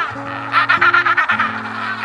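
A farm fowl calling in quick rapid-fire runs of about a dozen notes a second, one run from about half a second in and another near the end, over background music with steady low notes.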